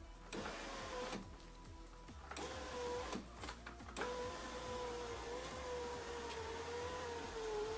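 Mercedes W639 Vito power window motor running the glass on a newly fitted replacement cable regulator: a steady motor whine in two runs, a short one, a brief stop with a few clicks, then a longer run whose pitch sags slightly near the end. The regulator is working again.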